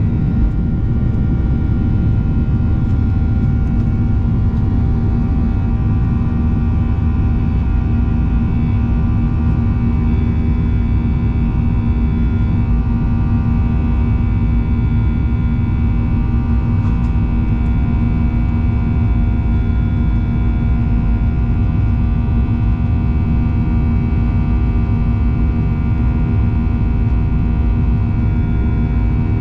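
Steady drone of a Boeing 737-800's CFM56-7B jet engines and airflow heard from inside the passenger cabin. It is a loud, even low rumble with a constant hum of fixed pitch that does not change.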